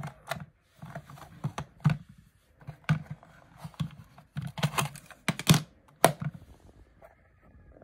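Plastic clicks and knocks from handling a Sanyo M-GR62 portable cassette player, its hinged cassette door being opened. The clicks come one at a time, spread irregularly, with the loudest about five and a half and six seconds in.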